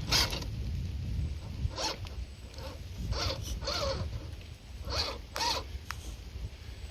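Electric motor and gears of a Redcat Gen8 Scout II radio-controlled rock crawler whining in short bursts as the throttle is blipped while climbing a rock. The pitch rises and falls with each burst, about eight times.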